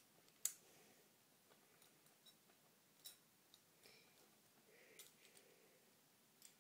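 Faint, scattered clicks of a Beyblade top's plastic and metal parts being handled, the sharpest about half a second in and a few more spread through.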